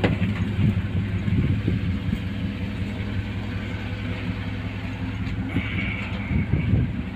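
An engine idling steadily, a low even hum, with a few low thumps near the end.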